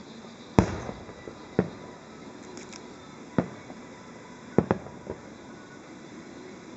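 Aerial fireworks shells bursting: about six sharp bangs at irregular intervals, the first the loudest, with a close pair a little past halfway. Each bang trails off briefly.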